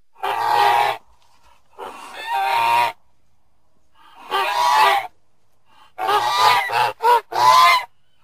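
A goose honking: about six harsh honks, each up to about a second long, the last three shorter and coming close together.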